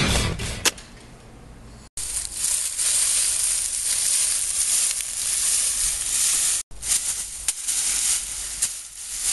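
Dry fallen leaves rustling and crackling as someone moves through and falls into them, a steady bright hiss with scattered crunches. It is broken twice by brief dropouts. Rock music fades out at the very start.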